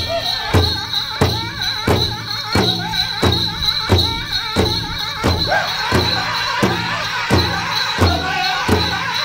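Powwow drum song for the men's chicken dance: a big drum struck in a steady beat, about three beats every two seconds, under a group of singers whose wavering high voices are strongest in the first half.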